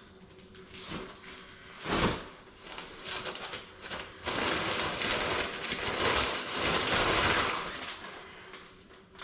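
Nylon carry bag being pulled up and off a folded metal camping cot, the fabric rustling and scraping over the frame for about three seconds. A thump comes about two seconds in.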